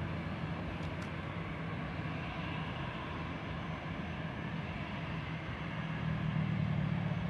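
Airbus A320-214's CFM56 jet engines running at low taxi power as the airliner turns on the runway, a steady hum and rush that grows louder about six seconds in.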